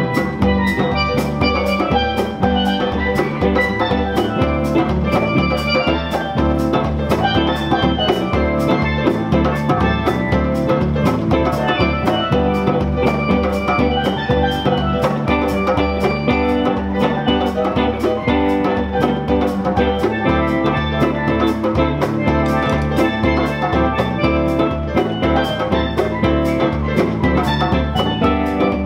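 Live Caribbean steel band music, instrumental: a steel pan playing over guitars, keyboard and a hand drum that keeps a steady beat.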